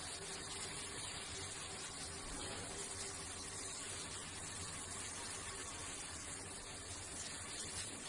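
Steady faint hiss with no distinct events.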